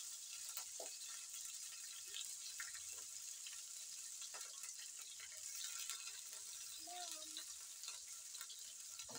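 Pork chipolata sausages sizzling as they deep-fry in hot oil in a frying pan: a steady high hiss with scattered small crackles.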